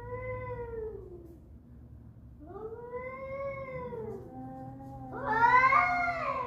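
Cats caterwauling at night: three long, wailing yowls that rise and fall in pitch. The last, about five seconds in, is the loudest and roughest, with a second, lower wail running underneath it.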